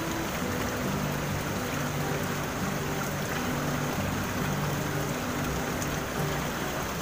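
Steady rush of river water flowing over rocks and small rapids, with background music playing over it.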